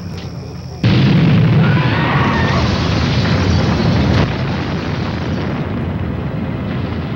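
A sudden loud explosion about a second in, followed by a long low tail that slowly eases off.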